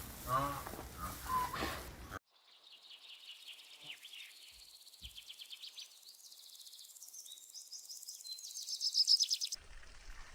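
A few honking fowl calls, then after an abrupt cut a small bird singing rapid high trills and chirps, loudest just before it cuts off near the end.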